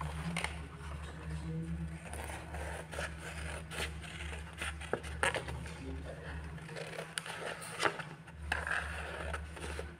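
Scissors snipping and cutting through paper, with the sheet rustling and scraping as it is turned between cuts. A low pulsing hum runs underneath and drops out briefly about seven seconds in.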